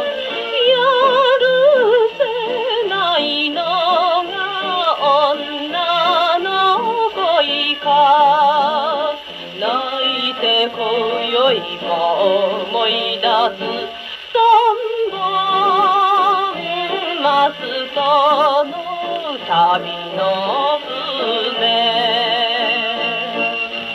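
A 1949 Japanese popular-song 78 rpm record playing on a Columbia G-241 portable gramophone through its acoustic soundbox: the instrumental passage between sung verses, a melody line with heavy vibrato over the accompaniment. The sound is thin, with no deep bass and no high treble.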